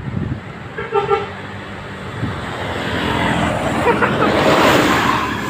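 A bus's multi-tone horn gives one short toot about a second in, over road traffic noise that grows louder in the second half.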